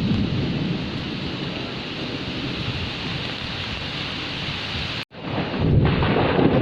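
Steady heavy rain with rolling thunder. The sound cuts out for an instant about five seconds in, then returns with a louder, deeper thunder rumble.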